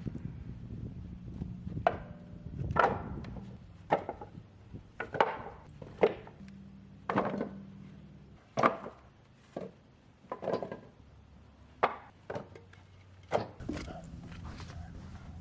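Blocks of cut Douglas fir firewood knocking together as they are handled, a sharp wooden knock about once a second at uneven spacing, over a steady low hum.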